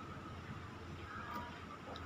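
Quiet room tone with a steady low hum, and a few faint clicks of a metal spoon and fork against a plate.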